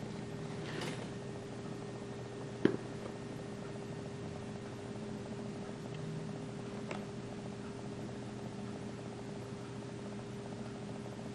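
Cardboard lens box being handled: a faint rustle, then a single sharp tap or knock about two and a half seconds in and a lighter tick later, over a steady low electrical hum.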